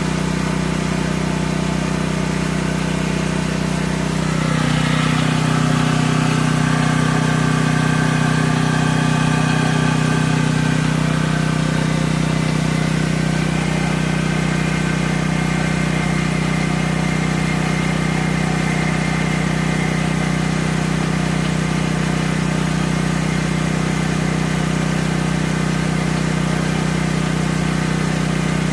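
Portable gasoline generator engine running steadily; about four seconds in its note changes and it gets a little louder, then holds steady.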